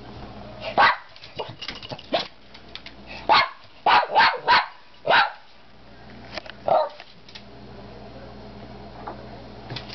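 Small dog barking in short, sharp barks, about eight in all, several in quick succession around the middle, then falling quiet for the last few seconds. It is excited barking in anticipation of dinner.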